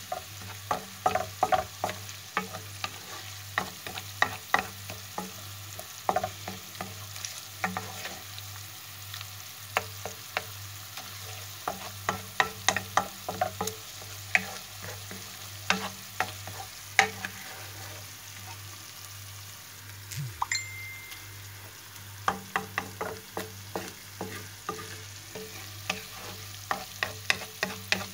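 Spatula stirring and scraping a sautéed chili sauce frying in oil in a pan, with frequent irregular sharp clacks against the pan over a low sizzle and a steady low hum.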